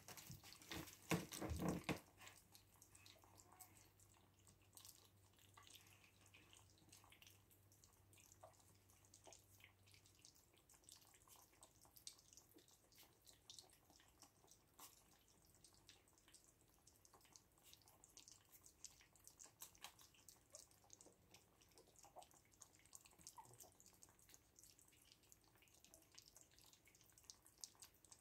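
Faint wet lapping and smacking of a litter of 3.5-week-old puppies eating soft mash from one shared bowl: a steady patter of small wet clicks. A few louder knocks come in the first two seconds.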